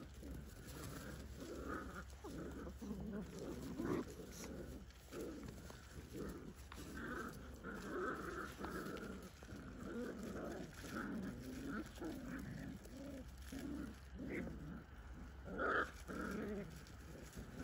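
Whippet puppies growling and making short calls as they play-fight, in an irregular run of little sounds, with one louder call near the end.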